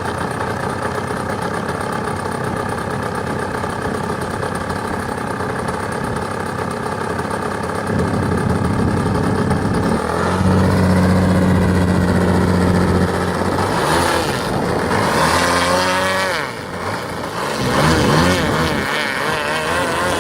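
DA70 twin-cylinder petrol engine of a large RC aerobatic plane running steadily, then louder from about 8 seconds in and held at a high steady pitch. In the last several seconds its pitch swings up and down repeatedly with throttle changes and passes.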